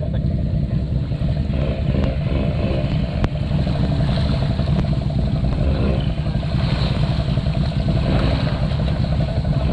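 Honda ATV engine running steadily under throttle, with a few sharp clicks.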